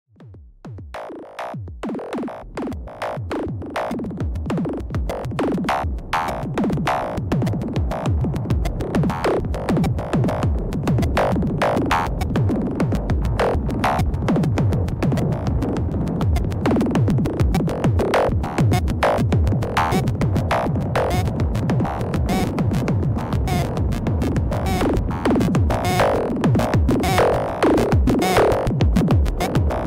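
Electronic music from a Make Noise semi-modular synthesizer setup (0-Coast, Strega and 0-Ctrl): a fast sequenced rhythm of short percussive notes with falling pitch sweeps. It fades in over the first few seconds, then runs at an even level.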